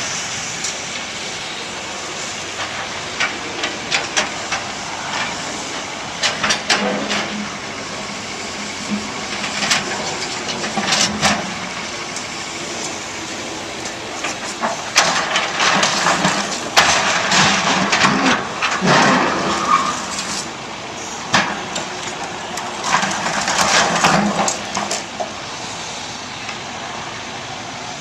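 Heavy equipment diesel engine running steadily, rising under load in several stretches. Each time it comes with bursts of clattering and banging as concrete chunks drop into a steel roll-off container.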